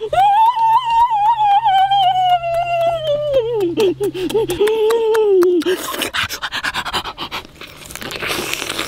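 A man's long, high-pitched wordless "mmm" of relish that slowly falls in pitch, then a shorter, lower one. These give way to wet mouth-smacking and crackly chewing and tearing noises as he bites into a roasted duck.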